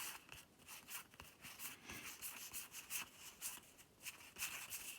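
Faint, irregular rustling and crackling of board game cards and packaging being handled and opened.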